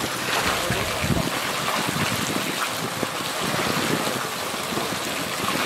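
Push broom scrubbing the floor of a plastic geomembrane fish tank under shallow water, the bristles swishing and splashing the water in irregular strokes.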